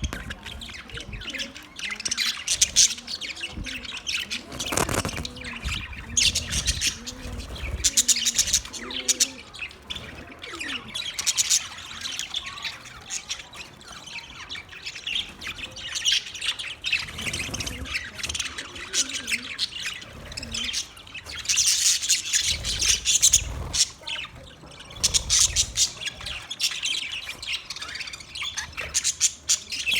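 A group of pet budgerigars chirping and chattering without pause in quick, overlapping high calls, with louder bursts of squawks every few seconds. A few dull low rumbles sound under them around the middle and later on.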